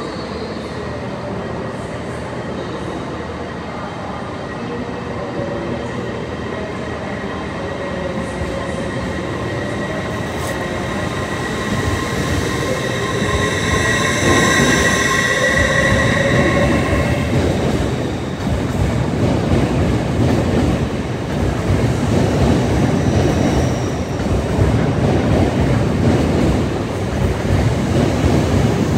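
LNER Azuma high-speed train running into the platform and past at close range, growing steadily louder. A high ringing squeal from the wheels peaks about halfway through, then gives way to the low rumble and clatter of the carriages' wheels rolling over the rails.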